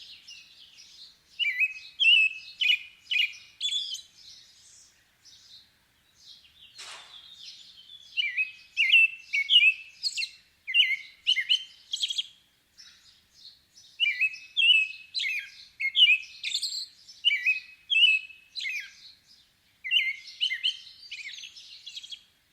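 Robin singing: runs of short, clear whistled notes, broken into groups by pauses, including one gap of a few seconds.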